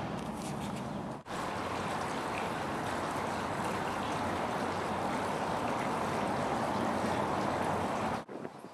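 Water pouring from a spout into a large rusted-steel fountain basin, a steady even splashing that starts abruptly about a second in and cuts off near the end. Before it, a moment of quieter indoor sound with a low hum.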